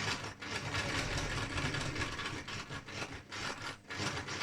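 Sewing machine running and sewing a zigzag stitch: a rapid, steady chatter of needle strokes over the motor's hum.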